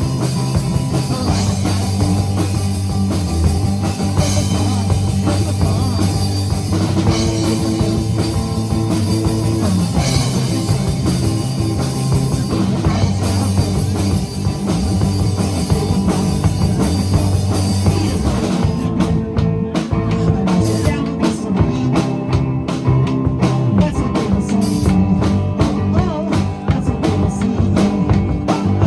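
Rock band playing live, with drums, bass and electric guitar. About two-thirds of the way through, the steady cymbal wash drops away and the band plays short, choppy stabs.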